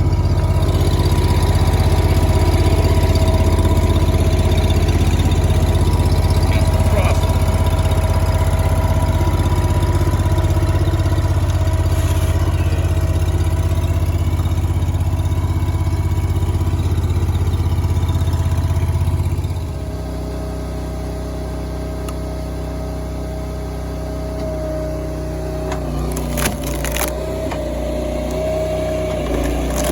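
Engine of firewood-splitting machinery running steadily, dropping to a lower, quieter note about two-thirds of the way through. A few sharp knocks come near the end.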